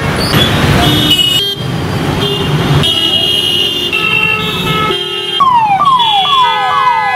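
Road traffic with vehicle horns honking in turns. About five seconds in, an ambulance siren starts up with repeated falling sweeps, about two a second.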